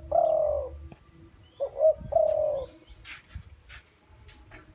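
Spotted dove cooing: the tail of one phrase, then about a second and a half in a full phrase of two short coos followed by a longer drawn-out note. A few faint clicks follow near the end.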